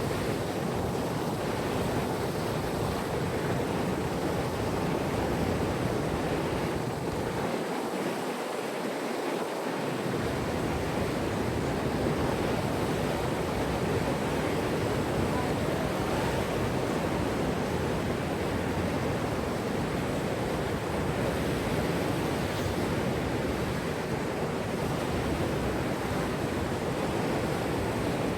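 Steady rushing noise of wind buffeting the microphone over moving water; the low rumble drops out for a couple of seconds about eight seconds in.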